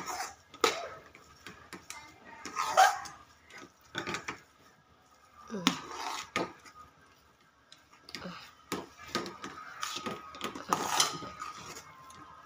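Steel spatula scraping and knocking against the sides of an aluminium kadhai while stirring thick, ghee-rich semolina halwa, in irregular clinks and scrapes, the loudest about three seconds in.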